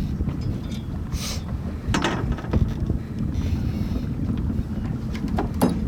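Wind buffeting the microphone aboard a sailboat under way, a steady low rumble, with a few short sharp noises about a second in, at about two seconds and near the end.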